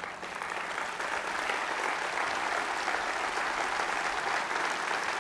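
Audience applauding: the clapping starts at once, builds over the first second or so, then holds steady.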